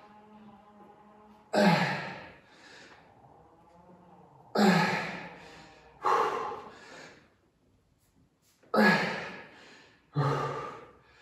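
A person exhaling hard with a voiced huff five times, about every one and a half to three seconds, each breath trailing off: effort breaths on the reps of a dumbbell leg exercise during a high-intensity interval set.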